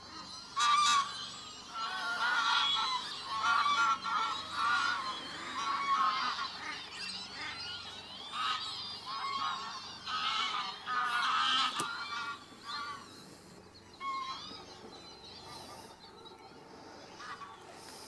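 A flock of greylag geese honking in flight, many calls overlapping, dense at first and thinning out after about twelve seconds.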